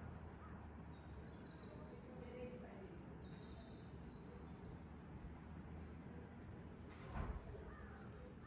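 Faint outdoor ambience: a steady low rumble of air with short, high bird chirps repeating about once a second and a few fainter bird notes. A brief low thump comes about seven seconds in.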